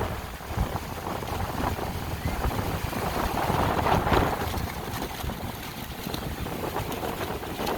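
Strong, gusting tropical-storm wind buffeting the microphone with a low rumble, swelling into a loud gust about four seconds in.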